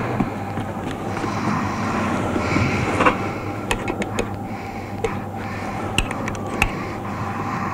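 Electric clothes iron worked over a white cotton shirt: a steady rushing, then from about three seconds in several light clicks and knocks.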